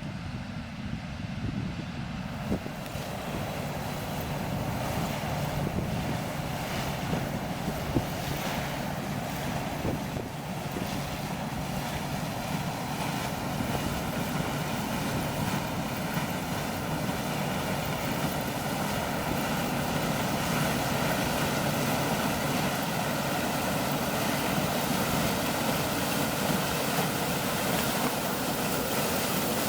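Farm harvest machinery's engine running steadily with a dense rushing noise over it; the sound grows fuller and brighter about two and a half seconds in and then holds steady.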